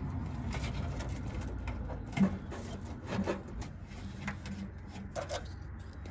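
Handling noise of wiring being tucked into a truck bed's plastic side panel: light rubbing and scraping with a few soft knocks and clicks of plastic, over a steady low hum.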